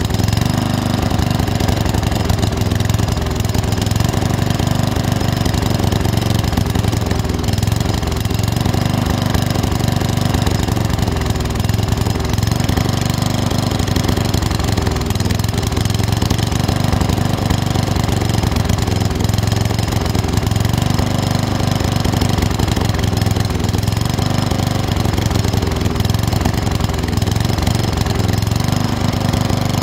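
Riding lawn tractor engine idling steadily.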